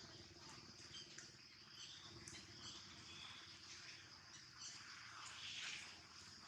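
Near silence: faint ambience with a steady high-pitched tone and a few short, faint chirps.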